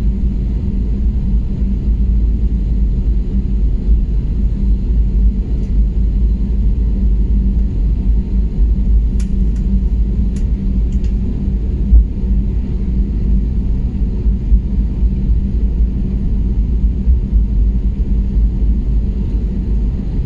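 Steady low rumble with a hum inside the cabin of an Airbus A320neo taxiing, its jet engines at taxi power and wheels rolling on the taxiway. A few faint clicks come around halfway.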